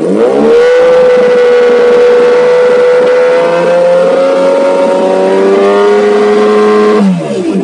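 Kawasaki Ninja ZX-10R's inline-four engine revved up and held at high revs, loud and steady, for several seconds, then let off near the end so the revs drop away.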